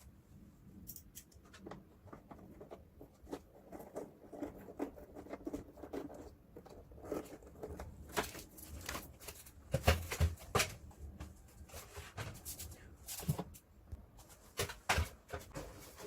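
Scattered plastic clicks, taps and knocks as parts of a split air conditioner's indoor unit are handled and fitted back together, with a heavier knock about ten seconds in.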